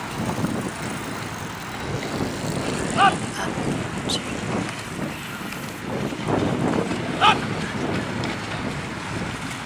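Steady wind and water rumble on the microphone as a dragon boat crew paddles. Two brief, loud shouted calls come about three seconds in and again about seven seconds in.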